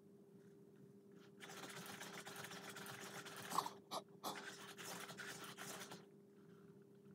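Sony Aibo ERS-1000 robot dog making a breathy sniffing sound from its speaker as it noses at a ball, lasting about four and a half seconds with a short break midway.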